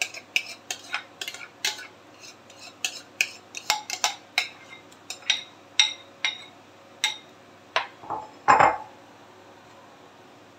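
Repeated sharp knocks and clinks as a food chopper's lid, blade unit and glass bowl are tapped against the rim of a metal pan to shake out ground paste. They come irregularly, about two a second, with a heavier knock a little over eight seconds in.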